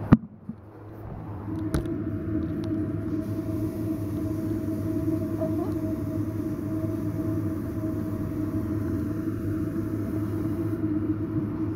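A sharp click at the start and a smaller one about two seconds in, then a steady machine hum with a faint fixed whine that sets in about a second and a half in.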